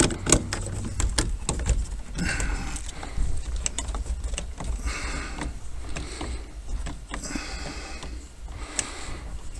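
Small metal clicks, taps and rattles of a hand tool and screws as a part is screwed back onto a truck's steering column, with a few brief scraping sounds.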